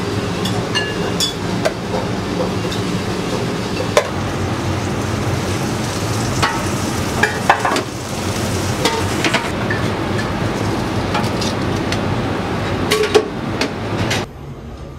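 Busy ramen-kitchen noise: gyoza sizzling on a flat griddle over a steady low hum, with sharp clinks and knocks of metal ladles and bowls. The din drops sharply near the end.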